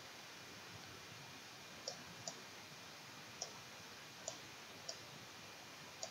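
Computer mouse button clicks, six short sharp ones at irregular spacing, over a faint steady hiss.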